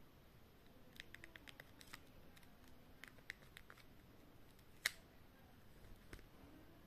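Faint plastic clicks and snaps from a Samsung SGH-E740 slider phone being slid open and shut in the hand, a quick run of small clicks early on and one sharp, louder snap about five seconds in.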